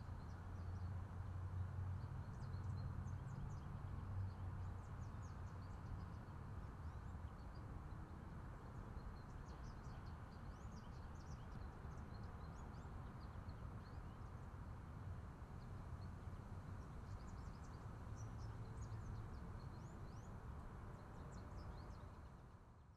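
Outdoor park ambience: a steady low hum of distant traffic with small birds chirping now and then. It fades out near the end.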